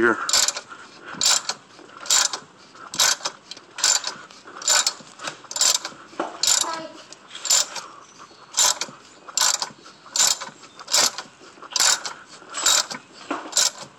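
Socket ratchet wrench clicking in regular strokes a little under a second apart as it turns the centre screw of a three-jaw puller, drawing the harmonic balancer off the crankshaft near the end of its travel.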